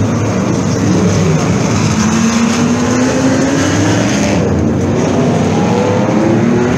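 A pack of historic race cars, led by Ford GT40s and a Shelby Cobra, accelerating away from a standing start as a loud, dense blend of engines. From about halfway, several engine notes climb in pitch one after another as more cars pull away.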